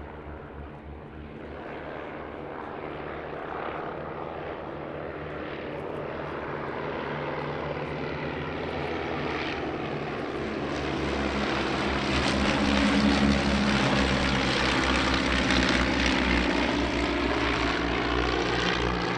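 Piston engines and propellers of four SV4 Stampe biplanes flying past in formation, growing louder as they close in and loudest about two-thirds of the way through, easing slightly near the end.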